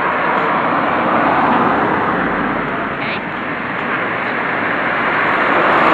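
Cars approaching along a wet road, their tyres making a steady hiss on the wet tarmac that grows louder near the end, with people talking nearby.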